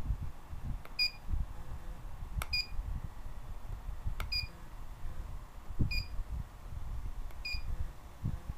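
IntelliQuilter computer beeping as its stylus taps the touch screen: five short high beeps, each just after a light tap, about every one and a half seconds, each beep confirming that the tap has landed on a snap point. Under them, low thumps and rumble of the longarm quilting machine being moved by its handles.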